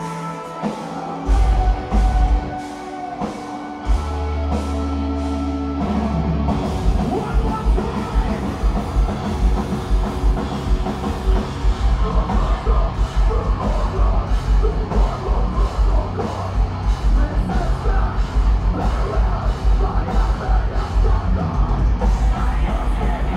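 Metalcore band playing live: distorted guitars and drum kit, a sparser passage with a held low note for the first few seconds, then fast, relentless kick drums and full heavy riffing from about six seconds in.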